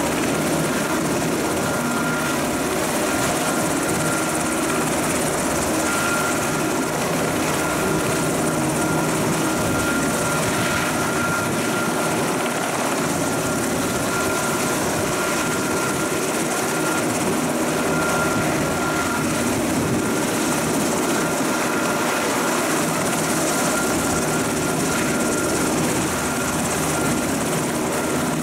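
U.S. Coast Guard Jayhawk helicopter running on the ground with its rotor turning: a steady, unbroken rotor and turbine noise with a steady high-pitched whine over it.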